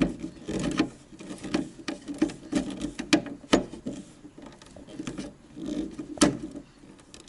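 Hand screwdriver driving the screw of a plastic main-breaker hold-down kit into the panel's plastic backing: a run of irregular clicks and creaks as the screw is turned, about two a second, with a pause near the middle and the sharpest click about six seconds in.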